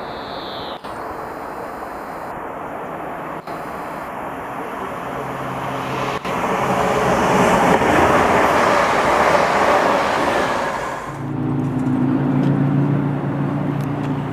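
A train passing through the station: its rumble builds to a peak about eight seconds in, then gives way about eleven seconds in to a steady low hum with several pitched tones.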